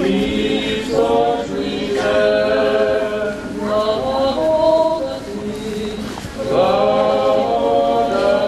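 Many voices singing a religious hymn together, unaccompanied, in long held phrases with a brief break about six seconds in.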